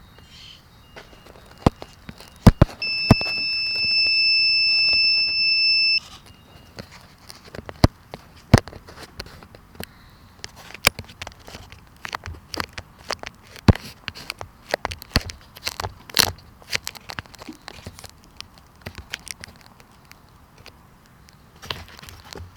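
An electronic buzzer gives one steady, high-pitched beep for about three seconds, starting about three seconds in, after a fainter tone of similar pitch. Scattered sharp clicks and knocks are heard throughout.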